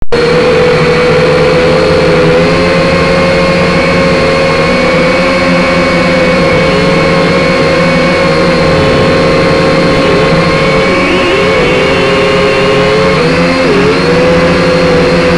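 Syma X5C quadcopter's small brushed motors and propellers whining in flight, heard close up from the drone's own onboard camera. A loud, steady buzzing whine whose pitch dips briefly a few times in the second half as the motor speed changes.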